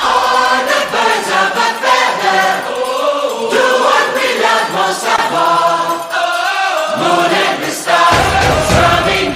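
Music with choir-like singing voices starts abruptly. A heavy low end joins about eight seconds in.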